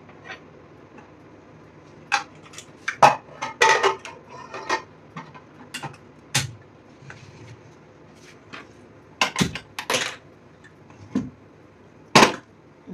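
Steel kitchen utensils clattering and clinking as they are handled and set down: a string of irregular knocks and rattles, loudest in a cluster about three to four seconds in, again near ten seconds, and in one sharp clank near the end.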